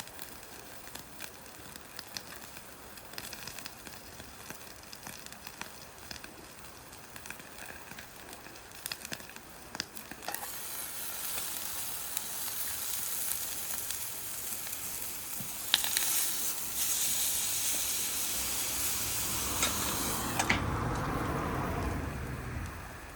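Wood fire crackling faintly with scattered small pops, then, about ten seconds in, food in a frying pan over the high-heat wood stove starts sizzling loudly and steadily and keeps on until it stops abruptly near the end.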